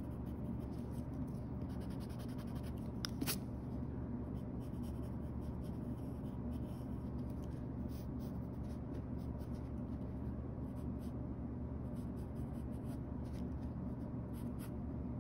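Graphite pencil scratching across sketchbook paper in short, repeated sketching strokes, over a steady low hum, with a brief click about three seconds in.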